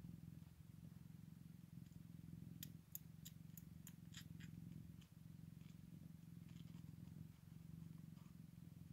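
Scottish Fold mother cat purring steadily while nursing her newborn kittens, a quiet contented nursing purr. A quick run of about six faint clicks comes a few seconds in.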